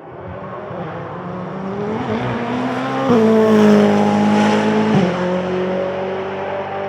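Ferrari 488 GT Modificata race car with a twin-turbo V8 passing at speed. The engine note grows louder, jumps abruptly in pitch about three seconds in, runs loudest for two seconds, then drops sharply around five seconds in, like gear changes, and fades away.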